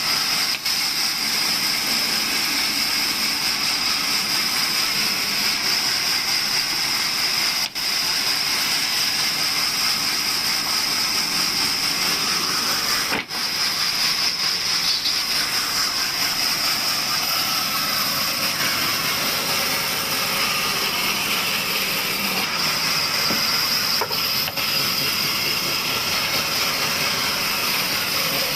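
Table sawmill running steadily: a loud, even hiss with a high whine, dipping briefly three or four times.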